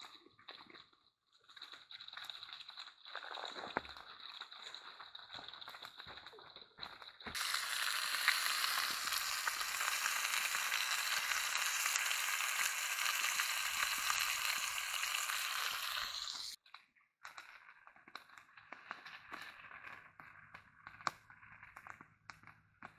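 Smallmouth bass fillets frying in a pan over a small wood fire: a loud, steady sizzle that starts suddenly about seven seconds in and cuts off about nine seconds later. Before and after it, quieter crackling and scattered clicks.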